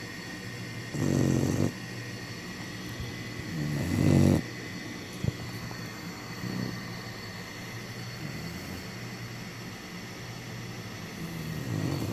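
Black Labrador puppy snoring in its sleep: two loud snores about a second and about four seconds in, softer breathing between, and another snore building near the end.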